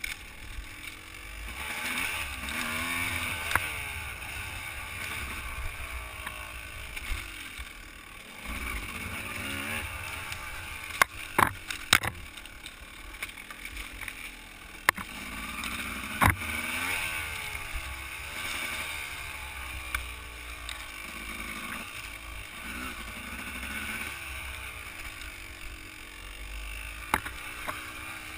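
Dirt bike engine revving up and down as it is ridden along a rough trail, with a few sharp knocks about halfway through.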